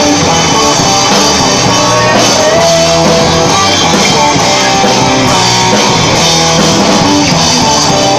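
Loud rock music with guitar and drums, playing steadily.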